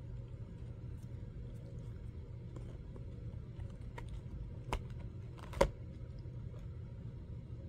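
Close-up eating sounds: chewing a bite of a chocolate-and-nut-coated ice cream bar, with faint mouth clicks and two sharp clicks about a second apart just past the middle, the second louder. A steady low hum runs underneath.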